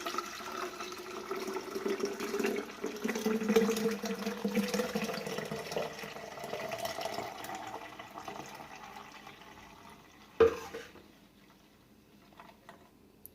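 Blended lemon juice poured through a kitchen sieve into a container, a steady splashing stream whose tone rises as the container fills, then tapers off about ten seconds in. A single knock follows shortly after.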